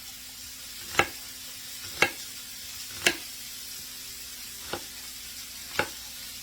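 A knife chopping vegetables into wedges on a cutting board: five sharp chops about a second apart. Under them, the steady sizzle of chicken frying in oil in a pan.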